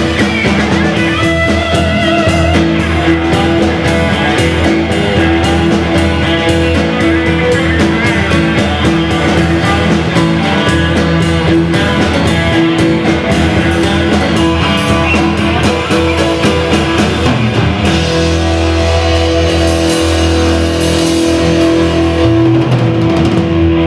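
Live rock band playing: a Telecaster-style electric guitar takes the lead over bass guitar, a full drum kit and keyboards. The guitar has bent, wavering notes in the first few seconds.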